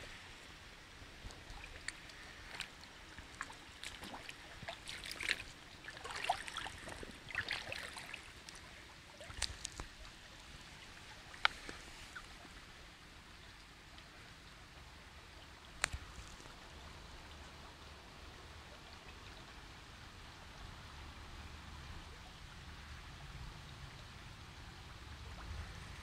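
Shallow stream water trickling steadily over stones. Scattered small splashes and ticks come in the first half, and there are two sharper clicks near the middle.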